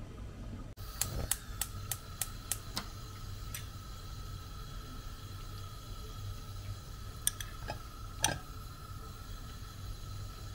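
Sharp clicks and taps of kitchen handling around a saucepan on a glass cooktop, with butter going into the pan. There is a quick run of about seven clicks in the first few seconds, then a few scattered taps, the loudest about eight seconds in. Under them runs a faint steady hum.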